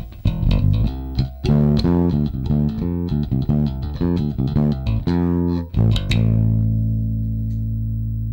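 Ernie Ball Music Man StingRay 4 electric bass played through a Markbass Little Mark Tube 800 amp and a 2x10 cabinet: a quick run of plucked notes, then a low note held and left to ring from about six seconds in. The amp's VLE tone knob is at noon, which is heard as a lot of tube warmth.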